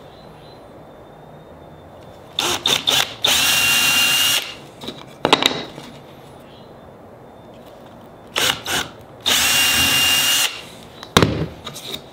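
Cordless drill boring two holes through a wooden block, each a run of about a second of steady motor whine. Short knocks come as the bit is set against the wood and pulled out around each hole.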